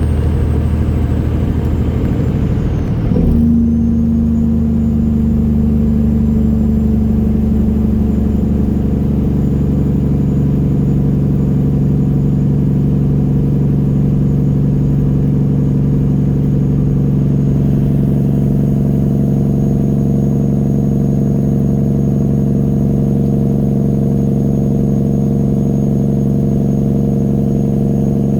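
Straight-piped diesel engine of a 1999 Peterbilt 379 truck running loudly at a steady pitch, with a sudden change in its note about three seconds in before it settles again.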